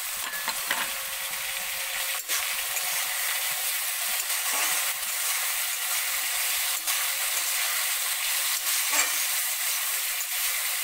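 Cubed potatoes, chickpeas and chopped tomato sizzling steadily in hot oil in a metal kadai, stirred with a metal spatula that gives a few sharp clicks against the pan.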